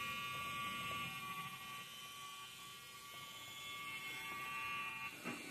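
Small electric motor driving plastic gears, a steady whir with a few fixed tones. A brief rustle near the end.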